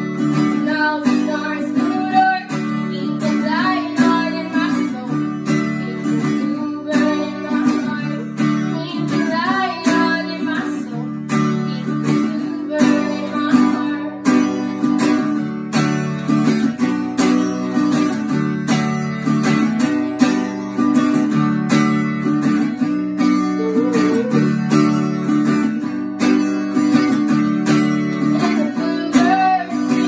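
Acoustic guitar strummed in a steady rhythm, chords ringing on between the strokes.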